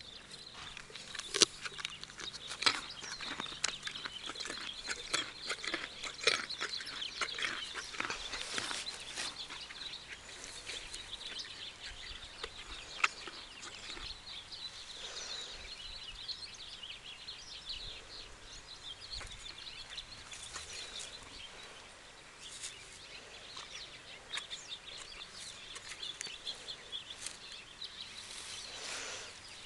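Outdoor ambience of birds chirping steadily, with scattered sharp clicks close by, thickest and loudest in the first ten seconds.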